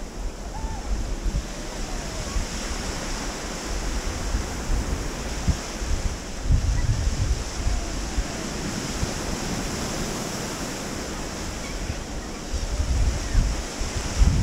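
Small waves washing onto a sandy beach, with wind gusting on the microphone, the gusts strongest about six seconds in and again near the end.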